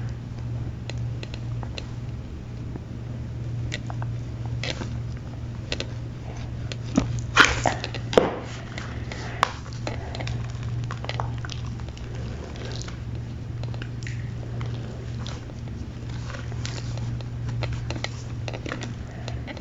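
Gym chalk block being crushed: scattered soft crunches and crumbles, with a louder run of crunches about seven to eight seconds in, over a steady low hum.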